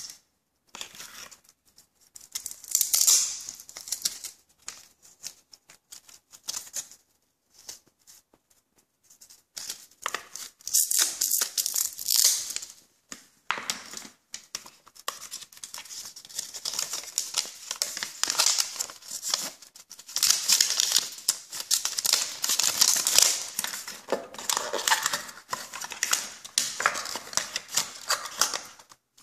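Hands handling cardboard and plastic packaging and a power adapter with its cable: intermittent rustling, scraping and small clicks in bursts with short pauses, busier in the second half.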